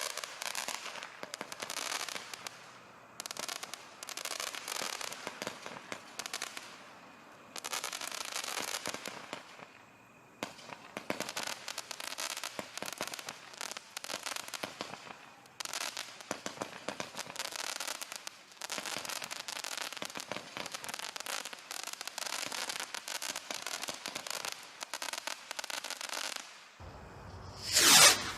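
Guy Fawkes 'Ammo Crate' 1.3G firework cake firing: dense volleys of rapid pops and crackle lasting a few seconds each, with short pauses between. One loud blast near the end is the loudest moment.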